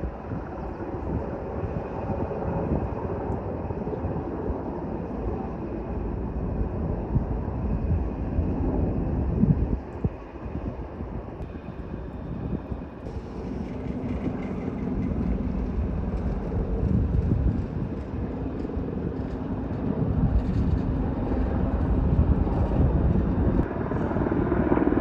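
Firefighting aircraft engine noise droning overhead, growing louder toward the end.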